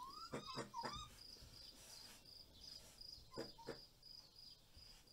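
A raccoon giving faint, high squeals that rise in pitch: a quick run of three or four near the start and a pair about three and a half seconds in. A cricket chirps steadily underneath, about three times a second.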